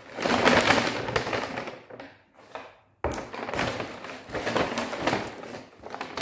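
Stiff paper takeaway bag rustling and crinkling as hands rummage inside it and pull out wrapped food and a drink cup, with a short lull about two seconds in.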